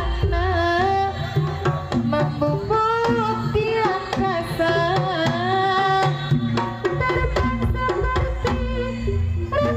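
Jaranan ensemble music: hand drums beating steadily under a melody that moves in small ornamented steps.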